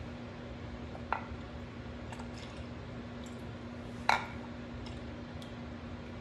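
Balsamic vinegar trickling slowly from a glass bottle into a glass measuring cup, with two light clicks, a small one about a second in and a louder one about four seconds in, over a steady low hum. The vinegar is old and pours slowly.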